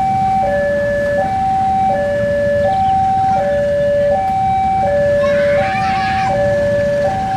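Railway level-crossing warning alarm sounding a steady electronic two-tone, switching between a high and a low tone about every 0.7 s, over the low rumble of an approaching diesel locomotive. A short burst of hiss comes about five seconds in.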